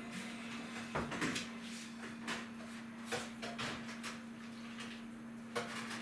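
Dishes and utensils knocking and clinking in a kitchen sink during hand washing-up: a scattering of sharp knocks, over a steady low hum.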